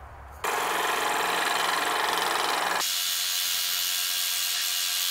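Scroll saw running and cutting a blue G10 fiberglass handle scale, a steady, even noise that starts about half a second in; its low hum drops away around three seconds in while the higher cutting noise carries on.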